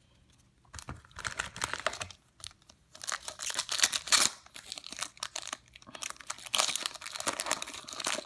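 Foil wrapper of a 2014-15 Upper Deck MVP hockey card pack torn open and crinkled by hand, in several crackling bursts from about a second in, loudest about four seconds in.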